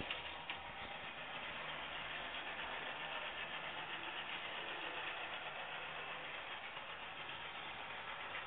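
Electric model train running along the track: a steady whir of its motor and wheels on the rails.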